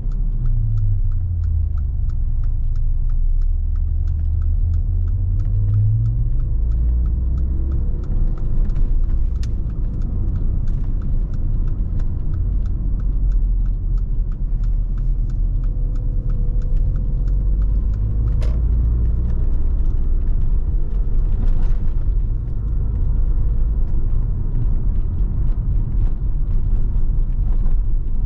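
A 2016 Mercedes-AMG GLA 45's 2.0-litre turbocharged four-cylinder engine and tyres heard from inside the cabin while driving: a steady low rumble, with the engine note rising and falling in the first few seconds.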